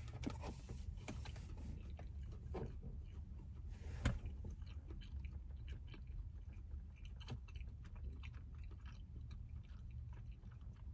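Faint chewing of the last bite of a meatless breaded buffalo wing, with small mouth clicks and one sharper click about four seconds in, over a steady low hum.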